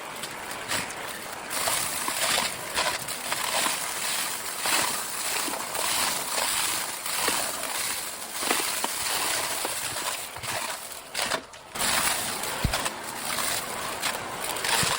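Vacuum cleaner running with quick back-and-forth strokes, its steady rush overlaid by dense, irregular crackling of crunchy debris being sucked up, with a brief drop in level about eleven seconds in.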